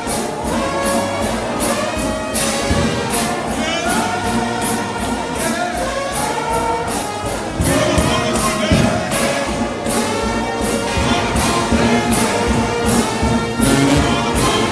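Brass shout band playing gospel music: a massed brass chorus, led by trombones, holds and bends sliding notes over steady cymbal and drum beats. It grows a little louder about halfway through.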